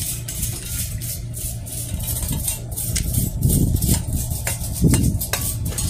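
A small brush scrubbing a metal wire plant stand to clean it before painting, in quick, uneven scratchy strokes of roughly two a second, over a steady low rumble.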